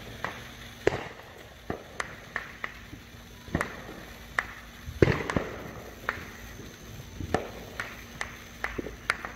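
Firecrackers and fireworks going off in scattered sharp pops, a dozen or so at irregular intervals, the loudest about five seconds in.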